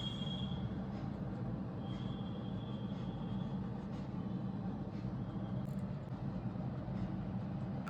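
Steady low rumbling noise, with a faint thin high tone that comes and goes.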